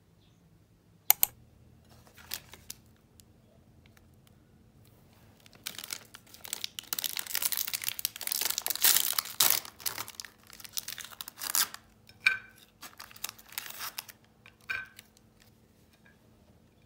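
Plastic wrapper of an Oreo cookie pack being torn open and crinkled for several seconds, followed by a few short clicks. A single sharp tap comes about a second in.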